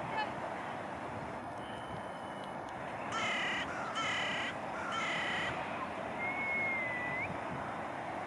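A crow cawing three times: harsh calls about half a second long, roughly a second apart. A thin whistled note that rises slightly at its end follows, over a steady background hiss.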